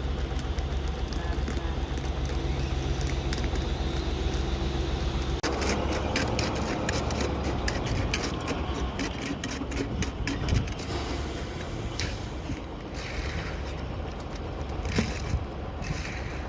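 An engine running steadily for about five seconds, then an abrupt change to scraping and clattering with many sharp clicks and knocks.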